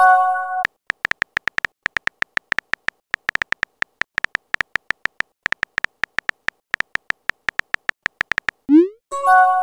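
Synthetic phone-keyboard tap clicks as a text message is typed: a fast, irregular run of short, high clicks. It opens with the end of a short chord-like chime and, near the end, a quick rising swoop and the same chime as the message is sent.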